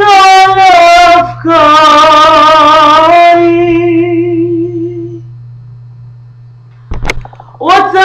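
A woman singing a long, drawn-out melodic line with heavy vibrato, ending on a held note that fades out about five seconds in. After a short lull with a low steady hum and a brief click, the singing starts again near the end.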